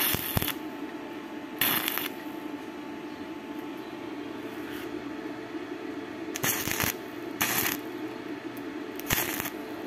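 Stick (arc) welding: five short tack welds joining a steel swivel caster plate to an angle-bar frame, each a crackling burst about half a second long, heard at the start, about two seconds in, twice near six and a half to seven and a half seconds, and once near the end. A steady low hum runs underneath.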